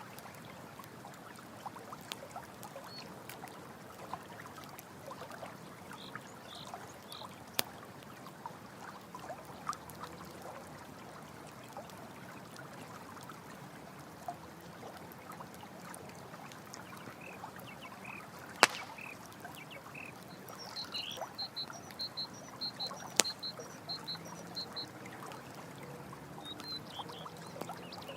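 Running stream water flowing steadily, with the sharp pops and crackle of a campfire, a few of them loud. About two-thirds of the way through, a quick series of high chirps from a small animal sounds for a few seconds.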